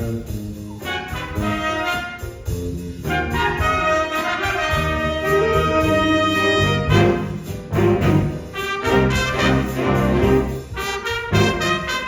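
High school jazz ensemble playing a big-band chart, the brass section to the fore. Held chords give way about halfway through to short, punched chords over a steady beat.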